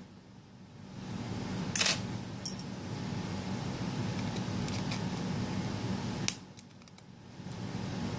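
Three sharp clicks from small repair tools working on an opened iPhone 6, the first the loudest, over a steady low hum that drops away twice.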